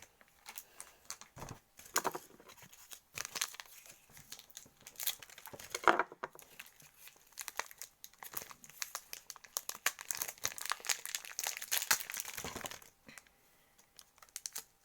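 Plastic packaging of coloured chocolate packets being crinkled and torn open by hand, an irregular run of crackling that pauses briefly partway through and tails off near the end.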